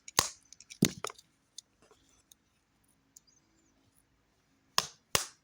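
Sharp knocks of a failing TV remote being whacked to get it working. There are two hits in the first second, a pause of about three seconds, then the hits start again near the end at a quick, steady pace.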